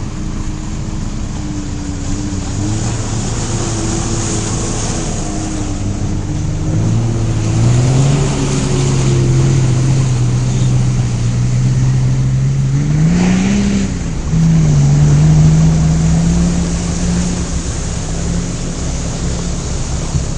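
An off-road vehicle's engine running under load. Its pitch climbs about seven seconds in, surges and drops briefly near thirteen seconds, then holds steady, over a constant rush of noise.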